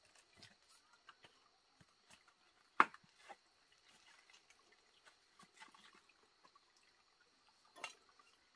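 Scattered light clicks and knocks, with a sharper, louder knock about three seconds in and another near the end, over a faint steady high-pitched hum.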